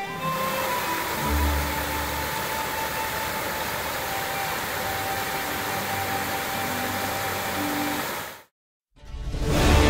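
Steady rush of water pouring over a granite-ledge cascade into a rocky stream, with faint held music notes underneath. It cuts off abruptly near the end, and music comes in after a brief silence.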